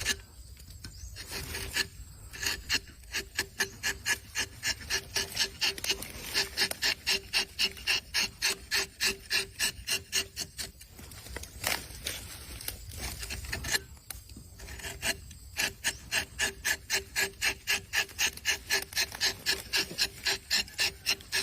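Wood being worked by hand with a back-and-forth tool, giving rapid, even rasping strokes at about three or four a second. The strokes come in long runs broken by a few short pauses.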